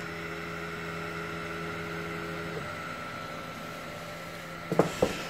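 Longer Ray5 10 W diode laser engraver running: a steady hum from its cooling fan and stepper motors as the laser head traces the frame at very low power. Several of the motor tones stop about two and a half seconds in while one higher tone carries on. A short vocal noise is heard near the end.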